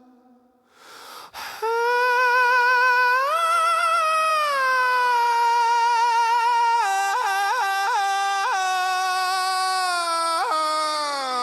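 A single wordless high voice from an AI-generated song, holding long wavering notes that slide up and back down, with a few quick upward flips past the middle. A brief swish comes just before the voice enters.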